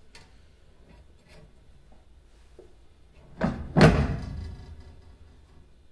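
Two metal knocks about half a second apart, the second louder with a short ring, as a plate on linear-guide carriages is set down onto its rail, with light clicks of metal parts being handled around them.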